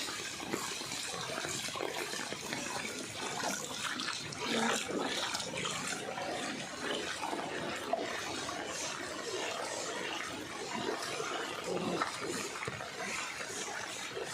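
Floodwater splashing and sloshing, a steady wash of water noise flecked with small splashes.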